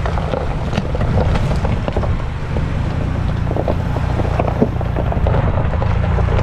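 Ford Bronco's 2.7-litre twin-turbo V6 pulling slowly up a rocky trail, a steady low drone, with scattered clicks and scrapes from the brush and rocks it is driving over.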